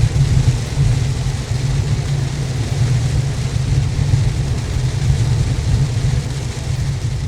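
Subaru WRX driving in heavy rain, heard from inside the car: a steady low road and engine rumble with an even hiss of rain and spray over it.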